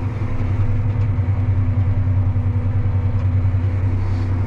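Farm tractor's diesel engine running steadily, a deep even drone with a steady hum above it.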